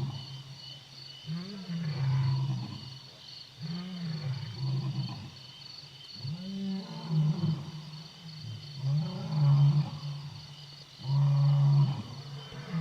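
Lion roaring in a series of calls, about one every two seconds, each rising then falling in pitch before settling into a low held note. The call near the end is longer and louder.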